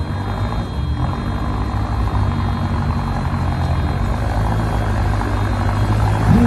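Off-road 4x4's engine running steadily under load in mud, a low drone that swells slightly near the end.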